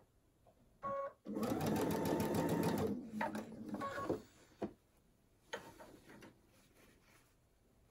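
Baby Lock Intuition computerized sewing machine stitching a short run of a few stitches: it runs steadily for about two seconds, then makes a few slower stitches and stops. A short electronic beep comes just before the run and another near four seconds in.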